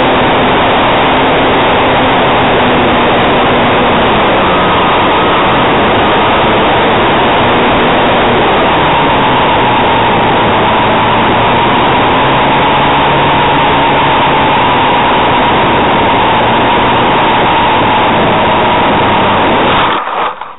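Electric motor and propeller of an RC model Cessna 400 Corvalis, recorded from a camera on board, whirring under heavy wind rush in flight, its pitch shifting a little with throttle. Near the end the sound drops away with a few jolts as the plane touches down in a grass field.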